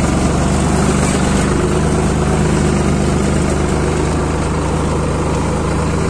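Farm tractor engine running at a steady speed while the tractor is driven, a constant low drone.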